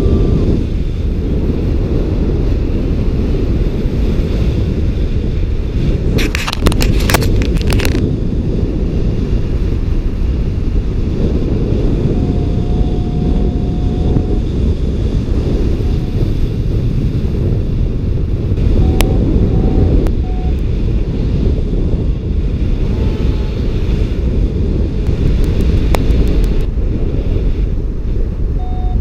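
Wind rushing over a GoPro's microphone in paraglider flight: a steady, heavy rumble. A few short high beeps come through here and there.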